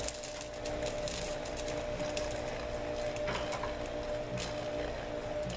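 Grow-bed clay pebbles clicking and crunching against each other as hands dig through them, in irregular small clicks, over a steady low hum.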